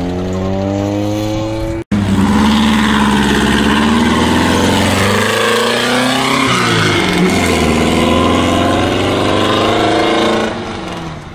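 A modified Volkswagen Beetle Baja bug, its air-cooled flat-four engine exposed, accelerates hard away with a loud exhaust. The pitch climbs, dips once at a gear change, then climbs again, and the sound fades near the end. Before it, a widebody Mazda Miata is heard revving up as it pulls away, cut off about two seconds in.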